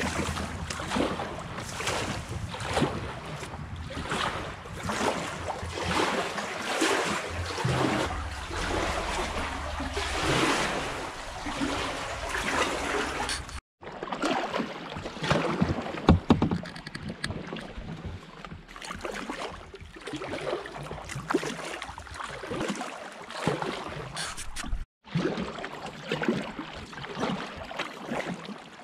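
Kayak paddling: the blades dip and splash in a steady rhythm, with water dripping off them between strokes and one sharper knock about halfway through. The sound drops out completely twice for a moment.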